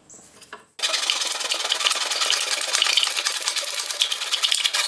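Hand wood saw in a miter box sawing through a PVC weather strip stick. The sawing starts about a second in and goes on steadily for about four seconds.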